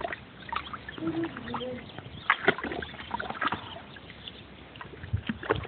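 Water splashing and sloshing in a shallow plastic tub in irregular bursts as an English bulldog paws at it and dunks its face in.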